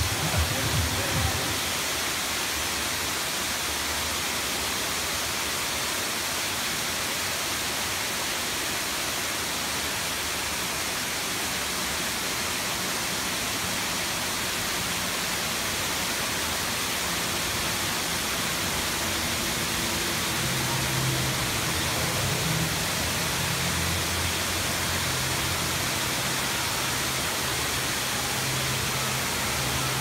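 Several thin waterfalls pouring down a rock cliff: a steady, even rush of falling water.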